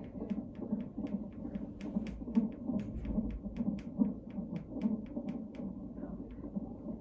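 Unborn baby's heartbeat at 34 weeks, played through the Doppler speaker of an Avalon fetal heart monitor. It is a fast, even pulse of about two and a half beats a second (around 145 a minute) over a low hum.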